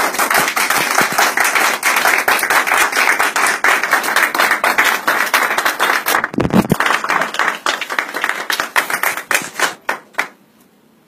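A small group of people clapping their hands in fast, dense claps that stop suddenly about ten seconds in.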